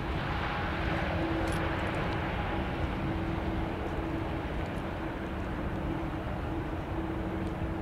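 Boeing 787 airliner's jet engines running steadily as it rolls along the runway, an even rushing noise with a steady hum underneath.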